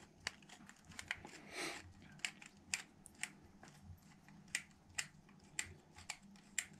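Faint, irregular small clicks and light taps of a flathead screwdriver turning in a petrol lawnmower carburettor held in the hand, as the fuel jet is unscrewed.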